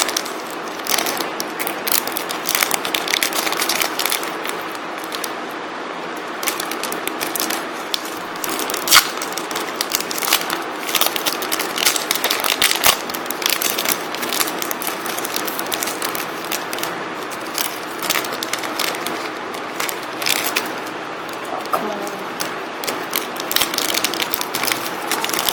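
A Match Attax trading-card packet's foil wrapper being torn open and crinkled, with cards being handled and flicked through: a continuous run of crackles and sharp clicks.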